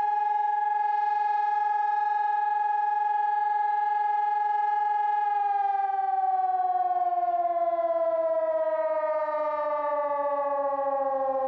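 Sonnenburg SES 1200 electronic siren sounding its monthly test alarm: a loud steady tone held for about five seconds, then gliding slowly down in pitch.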